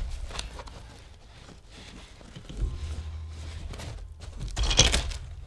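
Hands handling a cloth play mat: fabric flaps lifted and pressed back down, with soft rustling and light taps and a louder brief rustle about five seconds in.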